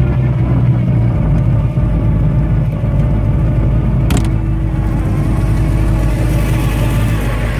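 Hot-rod 383 V8 with a dual four-barrel tunnel-ram setup running steadily as the car drives, with one sharp click about four seconds in.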